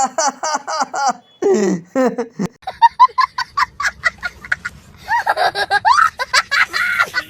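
Laughter in quick repeated ha-ha pulses, growing louder and fuller about five seconds in.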